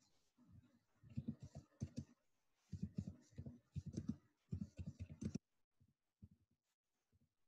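Faint typing on a computer keyboard: quick runs of key clicks that stop about five and a half seconds in, followed by a few scattered ticks.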